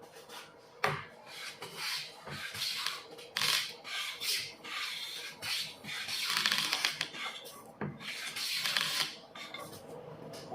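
A wooden hand-plane handle being rubbed down by hand with an abrasive, in a series of uneven scraping strokes, the longest near the middle and end, with a light knock about a second in.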